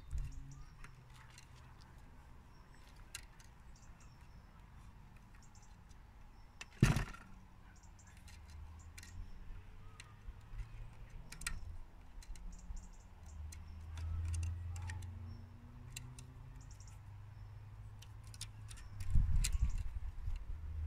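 Tennis string being handled and threaded while tying off a knot on a racket frame: scattered small clicks and ticks, with one sharper knock about seven seconds in. A low rumble rises and falls underneath.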